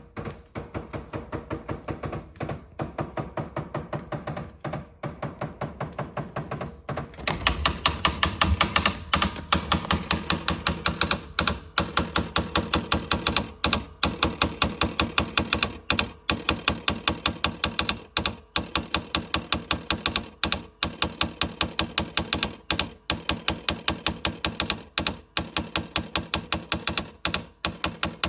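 LG LRFVC2406S refrigerator making a fault noise: rapid, even clicking in runs of about two seconds with short gaps between, growing louder about seven seconds in.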